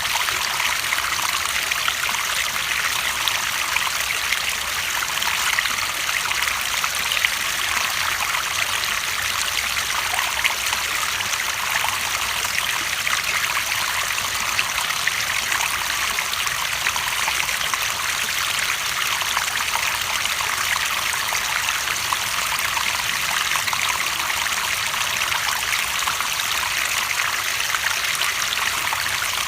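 Running water trickling and splashing steadily, an even rushing sound with no change or break.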